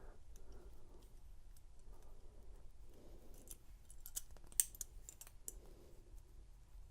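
Faint metallic clicks and scraping from a bent key-ring pick working the single lock of a pair of handcuffs, pushing at the pawl inside the cuff. A cluster of sharper clicks comes about four to five and a half seconds in.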